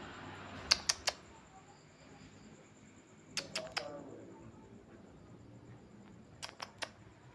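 Sleeping cat snoring with a clicky rattle: three quick clicks on each breath, repeating about every three seconds.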